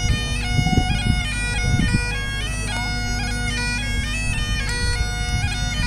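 A solo Great Highland bagpipe playing a quick-stepping melody on the chanter over its steady drones.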